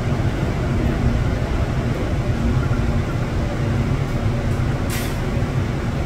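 Cabin noise of a Seoul Line 4 subway car with Mitsubishi GTO inverter drive, slowing into a station: a steady low rumble of wheels and running gear with a faint wavering hum. A short hiss comes about five seconds in.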